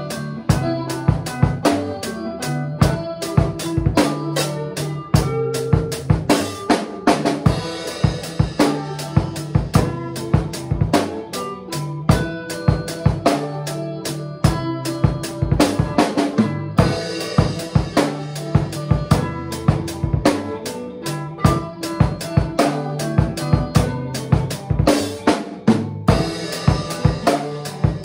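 A rock band playing live in a small room. A drum kit close by is loudest, hitting kick, snare and cymbals steadily, over electric guitars.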